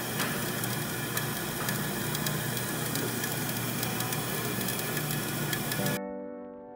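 A shaved-ice machine running with a steady loud rushing noise and a fine crackle over it. It cuts off suddenly about six seconds in, and soft sustained music follows.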